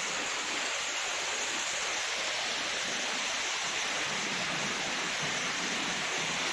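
Waterfall's water rushing steadily, an even unbroken noise with most of its energy in the upper range.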